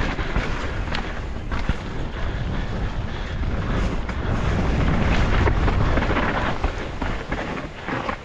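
Wind buffeting the microphone and knobby tyres rolling over dirt as an enduro mountain bike descends a forest trail at speed, with scattered knocks and rattles from the bike hitting bumps and roots.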